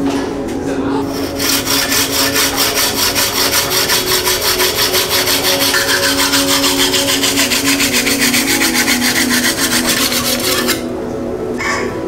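Hacksaw cutting a carbon fork steerer tube through a slotted saw guide, in fast, even back-and-forth strokes of about four a second. The sawing starts about a second in and stops near the end.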